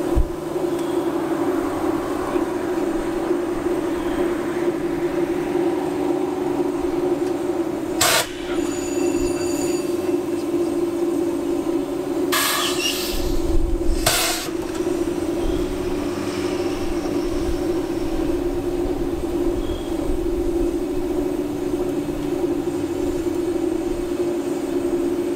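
Stopped diesel freight locomotive idling with a steady hum. A sharp clank about eight seconds in, then a hiss lasting about two seconds and another short clank a few seconds later.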